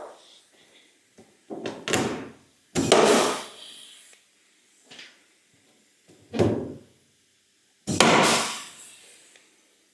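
Four loud clunks of a Land Rover tub's sheet-metal rear panel being knocked and pushed into place, each rattling off over about a second, as the panel is lined up for clamping.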